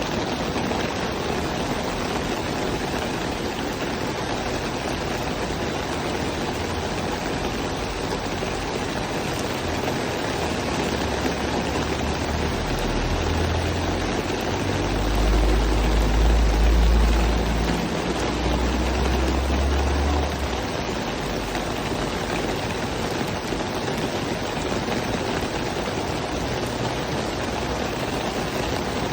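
Steady rain, an even hiss with no breaks. About halfway through a deep low rumble swells, peaks, then fades out again a few seconds later.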